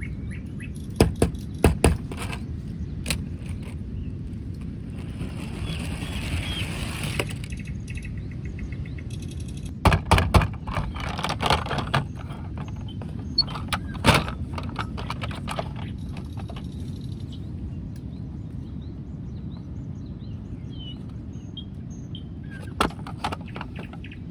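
Scattered clicks and knocks of hard plastic toy pieces being handled, with a rustle of packaging for a couple of seconds, over a steady low background hum of outdoor noise and a few faint bird chirps.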